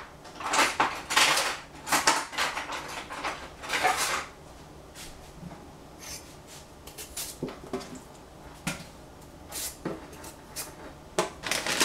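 Kitchen clatter of dishes and utensils being handled: a few short scraping noises in the first four seconds, then scattered light knocks and clicks.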